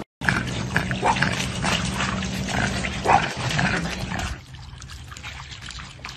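Dog barking for the first four seconds or so. Then quieter water splashing and trickling as a pug stands in a puddle on a mesh pool cover.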